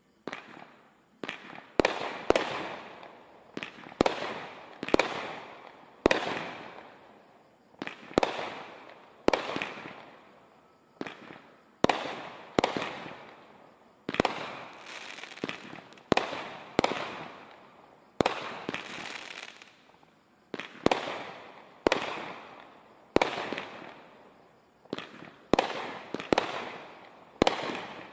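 Brothers 'Crime Scene' 49-shot 500 g firework cake firing shot after shot, about one a second. Each shot is a sharp bang followed by a fading tail.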